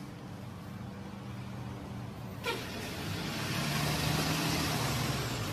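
School bus engine running at a stop with a steady low hum; about halfway through, a sudden loud rushing hiss sets in and continues over it.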